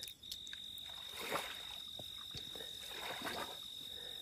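Crickets trilling steadily at one high pitch, with a few faint, soft, short noises scattered in between.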